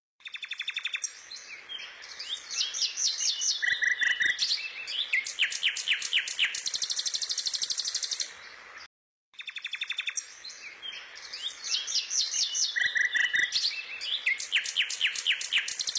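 Songbirds chirping and trilling in quick runs of high notes. The birdsong drops out for a moment about nine seconds in, then the same stretch of song starts over: a looped birdsong track.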